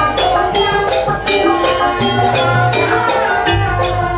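Live Banyuwangi gandrung gamelan music. Metal percussion strikes about four times a second over ringing pitched tones and a low steady hum.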